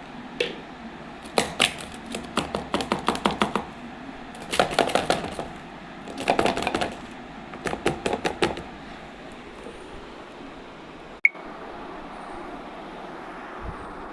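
A kitchen utensil working quickly against a dish in four bursts of rapid, even strokes, then a single sharp click near the end.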